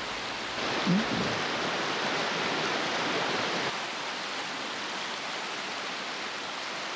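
Clear mountain stream rushing over rocks in a small cascade: a steady, close rush of water.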